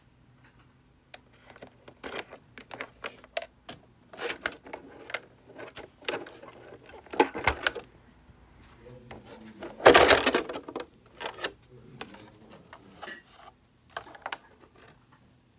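Plastic clicks, knocks and rustles from a Traxxas Rustler 4x4 VXL RC truck being handled, its clear polycarbonate body shell taken off and turned over. There is a louder rustle lasting about a second midway through.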